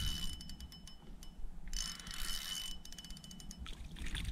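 Spinning reel being cranked to wind in a hooked fish: quick clicking of the reel's gears with a faint whine, in short spells with brief pauses between them.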